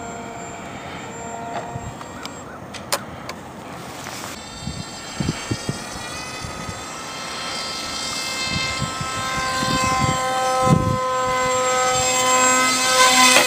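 Brushless electric motor and propeller of a small homemade RC plane whining in flight. It grows louder over the second half and rises slightly in pitch near the end.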